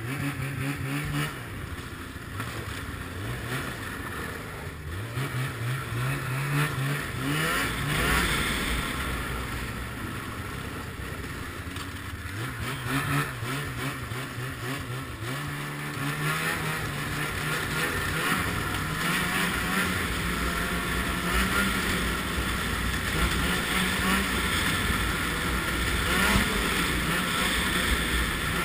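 Ski-Doo MX Z 700 snowmobile's two-stroke engine pulling away and accelerating, its pitch rising and falling several times with the throttle, then running at a steadier, higher speed through the second half.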